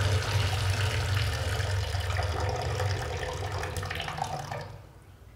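Water running hard from a wall-mounted tap into a sink, cut off about four and a half seconds in as the tap is turned shut.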